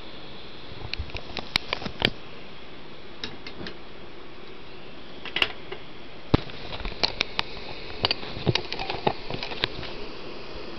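Optimus 199 pressure stove burning white gas, its burner giving a steady hissing rush. Scattered sharp clicks and knocks sound over it, a cluster about one to two seconds in and more from about five seconds on.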